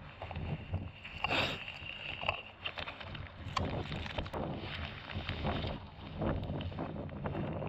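Water lapping and slapping against the hull of a small boat in uneven surges, with wind buffeting the microphone.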